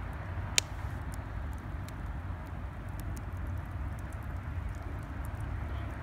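Wood campfire burning, with scattered small crackles and one sharp loud pop about half a second in, over a steady low rumble.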